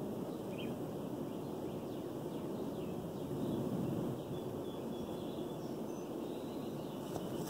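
Steady low hum of honey bees flying around the hives, with a few faint bird chirps.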